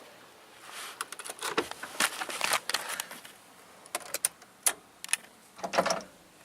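Scattered sharp metallic clicks and short clattering knocks of hand work with tools and parts. They are irregular, with a few louder clacks toward the end.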